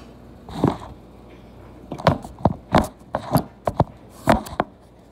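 About ten sharp wooden knocks, irregularly spaced, one near the start and the rest in a quick run in the second half: a kitchen knife and hands working on a wooden cutting board.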